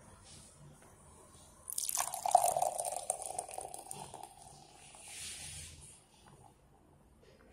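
Beer poured from an opened aluminium can into a stemmed glass. The stream starts suddenly about two seconds in and splashes loudly into the glass for a couple of seconds, then eases into a softer fizzing as the foam head rises.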